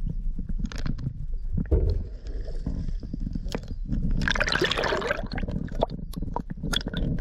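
Muffled underwater sound picked up by a submerged camera near the surface: a constant low rumble of moving water with scattered clicks and crackles. About four seconds in comes a brief hissing rush of bubbles.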